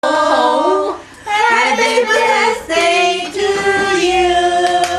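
Several voices, women's among them, singing a birthday song together, with short breaks between phrases and ending on a long held note.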